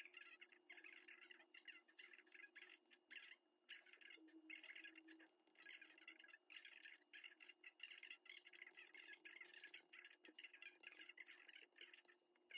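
Faint scratching and tapping of an Apple Pencil's plastic tip writing on an iPad's glass screen, in quick irregular strokes with short gaps, over a faint steady hum.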